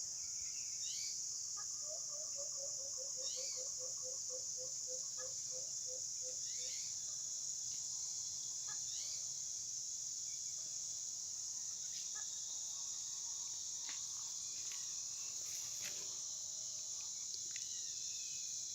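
Steady high-pitched chorus of crickets and other insects with birds calling over it. Short falling chirps repeat every few seconds, and near the start a run of about twenty quick low notes falls slightly in pitch over some five seconds.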